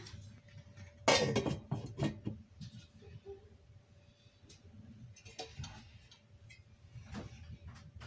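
Stainless steel lid set onto a stainless steel pot: a sharp metal clank with a brief ringing tail about a second in, then a lighter clink, followed by a few soft knocks.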